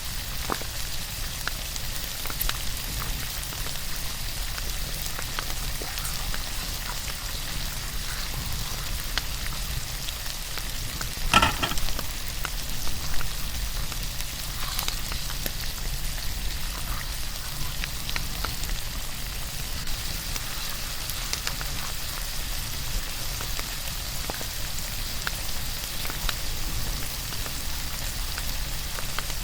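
Steak sizzling in a pan over a campfire: a steady frying hiss with scattered small crackles, and a louder knock about eleven seconds in.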